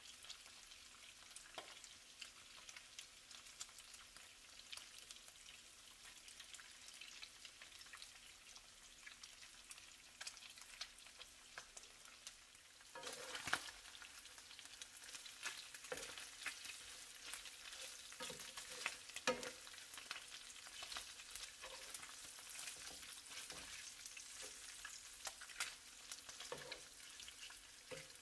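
Chunks of slow-cooked pork shoulder frying in hot oil in a nonstick skillet: a faint, steady sizzle with crackles as the outsides crisp. About halfway through the sizzle gets louder, and a wooden spatula scrapes and knocks in the pan as the pieces are turned.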